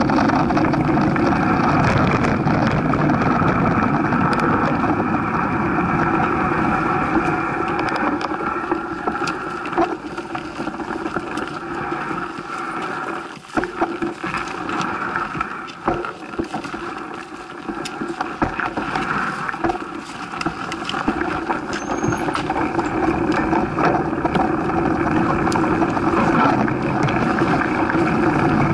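Mountain-bike ride noise picked up by a bike-mounted action camera: steady wind rush and knobby-tyre rumble on a dirt trail, with frequent small rattles and knocks from rough ground. It goes quieter for a few seconds in the middle, then builds back up.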